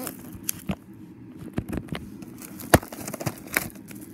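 Plastic packaging on a DVD box set crinkling and crackling under the fingers, in scattered light clicks, with one sharper tick about two-thirds of the way through.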